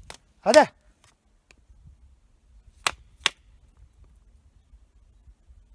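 A man shouts "hadi", then two sharp cracks come less than half a second apart about three seconds in. It is noise made to scare off an unseen animal in the woods, which he takes for a wild boar.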